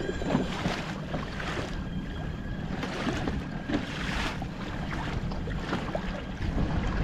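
Water rushing and splashing along a fishing kayak's hull as it moves through choppy sea, in repeated surges, with wind on the microphone.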